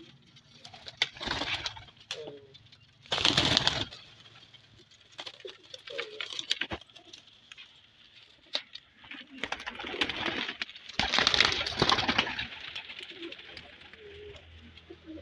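Domestic pigeons cooing softly in a loft, with three loud bursts of wing flapping: a short one about a second in, another about three seconds in, and a longer one in the second half.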